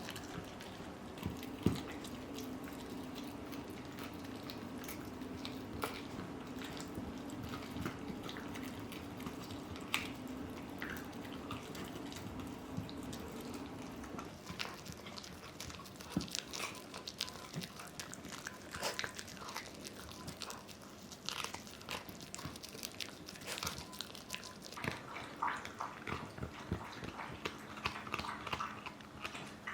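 Dogs gnawing and crunching on dried Achilles tendon chews: repeated short crunches and clicks, busier in the second half, with a low steady drone under the first half.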